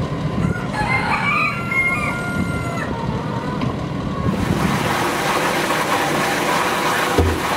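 A rooster crows once, a long call of about two seconds, over the low rumble of a vehicle rolling along a dirt road. About four seconds in this gives way to the steady rush of water gushing from a fire hose nozzle into a galvanized stock tank.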